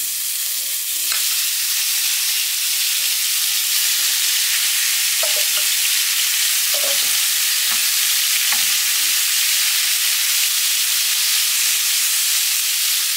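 Strips of beef searing in hot oil in a grill pan, a steady sizzle that grows louder about a second in as more meat goes into the pan. A spoon stirs and spreads the pieces.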